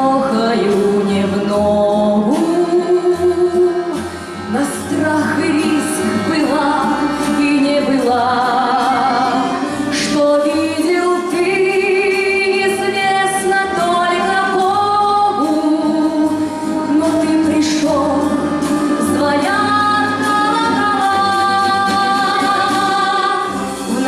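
Music: a woman singing a song in operatic style, with vibrato on held notes, over instrumental accompaniment with a bass line.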